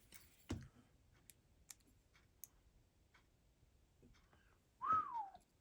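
A few faint clicks and a soft knock as small parts of an HO-scale slot car chassis are handled on a bench. Near the end a short tone falls in pitch.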